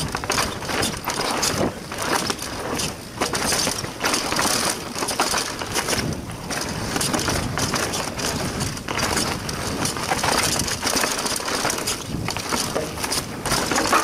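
Mondraker Foxy Carbon RR 29 mountain bike riding fast down a dry dirt trail: tyres rolling and skidding over dirt and dry leaves, with constant rattling and knocks as it runs over bumps and roots.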